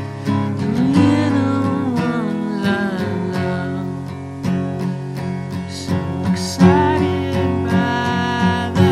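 Background music led by a strummed acoustic guitar, with steady chords and regular strums.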